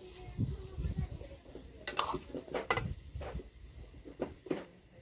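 Steel ladle knocking and scraping against a steel kadai while fish pieces are stirred, with a handful of separate clinks, most from about two seconds in.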